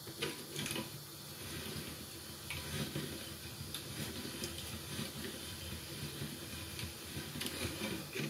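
Hand-cranked pasta machine turning, its cutter rollers slicing a sheet of semolina dough into thin noodles: a steady rough rattle of the crank and gears, with a few sharp clicks.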